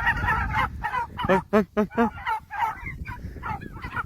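Chicken squawking, a steady run of short, loud honking calls at about three a second.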